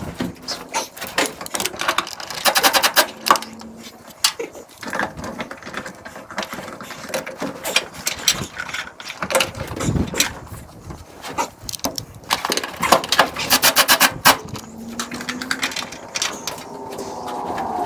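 Clicks, knocks and rattles of hand-tool and parts work, with two short bursts of rapid clicking, about three seconds in and again around thirteen seconds.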